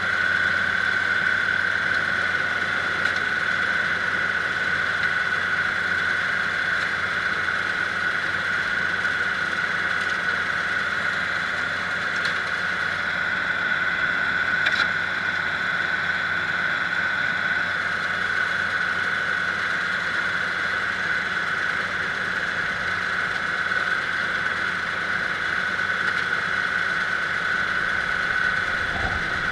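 Kubota diesel engine running steadily under a constant high-pitched whine.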